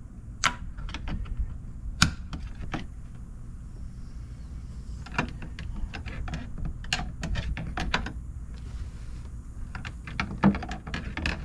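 Plastic interior trim clips being pried and popped loose: an irregular run of sharp clicks and snaps, loudest about half a second, two seconds and ten seconds in.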